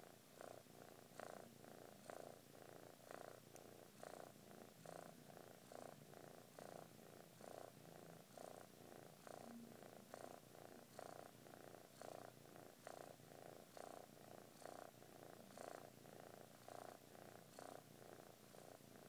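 Kitten purring softly and steadily, the purr swelling and easing with each breath about once a second.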